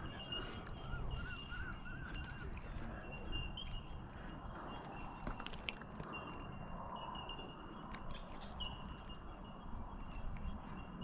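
Outdoor ambience: a bird gives a quick run of about six short rising-and-falling chirps about a second in. Under it are a low rumble, a thin high whine that comes and goes, and scattered small clicks.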